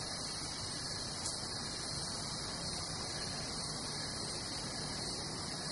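Steady hiss of electronic static, even in level throughout.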